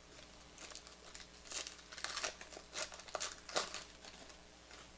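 Crinkling and crackling of trading-card packaging being handled, in a quick irregular series for about three seconds.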